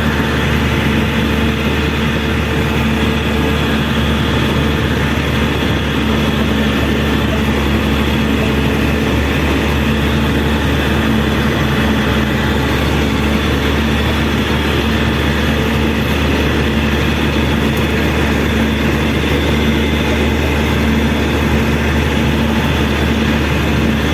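Caterpillar 120K2 motor grader's diesel engine running steadily as the machine travels, an even hum with no change in pitch.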